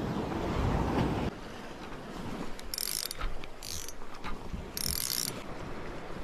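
Shimano Twin Power spinning reel being cranked in three short, quick bursts during a jigging retrieve, its gears and line making a whirring hiss, with a few clicks from handling the rod and reel. Wind and surf run underneath.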